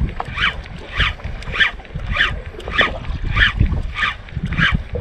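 Fishing reel being cranked against a hooked fish: a scratchy sound repeating evenly about every 0.6 seconds, over wind on the microphone.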